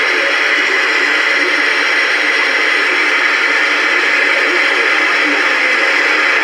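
Steady hiss of radio static, an even, unchanging noise like a receiver tuned to no signal.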